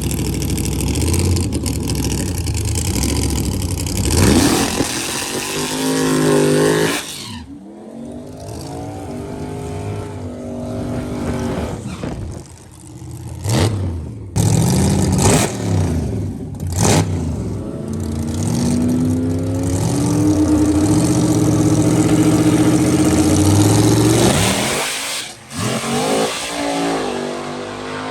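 Drag race car engines revving and accelerating hard, their pitch climbing and dropping repeatedly as they pull through the gears. It comes in several short stretches broken by sudden cuts.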